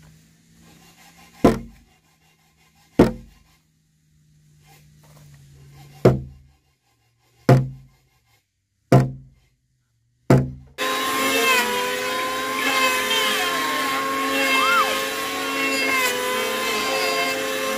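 Six heavy knocks of a tool striking timber, each ringing briefly, about one and a half seconds apart. About two-thirds of the way in, a power tool starts abruptly and runs loudly with a steady whine.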